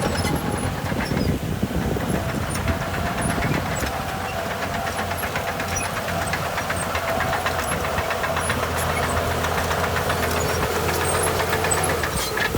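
Heavy earthmoving machine's diesel engine running steadily, with a fast, even clatter over the engine rumble.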